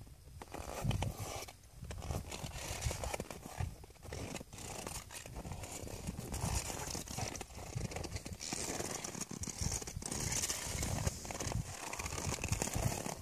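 Irregular crunching and rustling of a horse's hooves and a person's boots shifting in snow, over a low rumbling noise.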